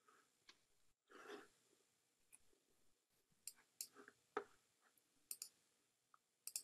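Near silence: faint room tone broken by a few soft, scattered clicks and one brief rustle a little over a second in.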